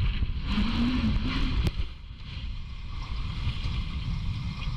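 Low, steady wind rumble buffeting the microphone outdoors. A short wavering tone comes about half a second in, and a single sharp click just before the two-second mark.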